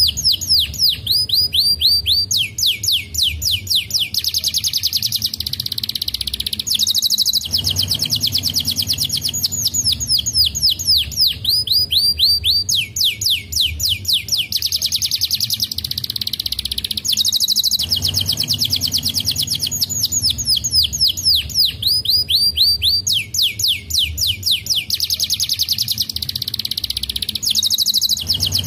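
Domestic canary singing: long, rapid, high-pitched trills of quick falling notes, run together in rolls with short breaks. The same sequence of phrases comes round again about every ten seconds.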